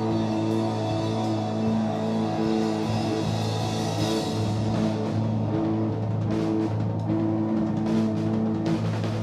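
Live heavy rock from electric guitar and drum kit: the guitar holds low chords for a second or so at a time over steady drumming, with cymbal hits thickening in the second half.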